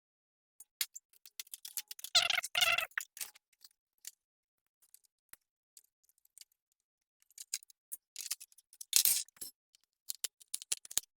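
Scattered small clicks and rattles of plastic fairing panels and their fasteners being worked off a 2007 Yamaha R6 sport bike, with two louder scrapes, about two seconds in and about nine seconds in.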